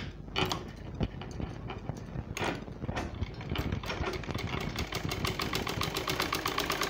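Black Rita domestic sewing machine stitching a waistband seam: a few clicks and fabric-handling noises as the cloth is set under the foot, then, about three and a half seconds in, the machine starts a rapid, even clatter of the needle mechanism that keeps going.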